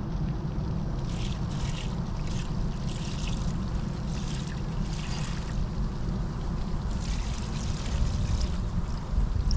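Wind rumbling on the microphone, with a string of short rustling, scraping sounds, about one or two a second.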